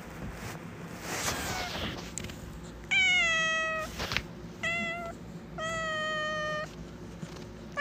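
Domestic cat meowing: three long, steady meows, the first and last over a second each and slightly falling in pitch, starting about three seconds in, with another beginning at the very end. Before them, rustling and a few light knocks.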